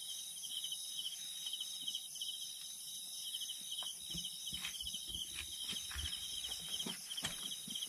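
Insects chirping steadily in high-pitched pulsed trains, with a steady higher-pitched buzz above them. A few faint soft knocks sound through it.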